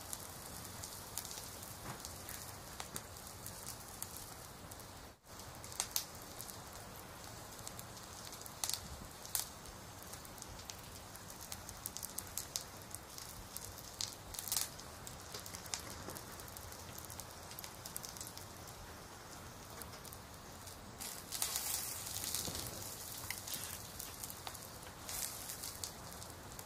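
Crackling-fire and rain ambience: a steady soft hiss with scattered crackles and pops, and a louder rustle about three-quarters of the way through.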